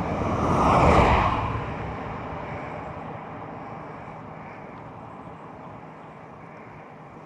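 A vehicle driving past on the road: tyre and engine noise swells to its loudest about a second in, then fades away slowly.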